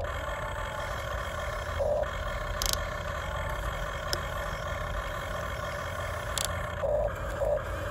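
Huina RC excavator's electric motors and gearboxes whirring as the boom and arm move and the bucket digs into dirt, swelling louder about two seconds in and again near the end. Two short sharp clicks are heard, one a bit before the middle and one near the end.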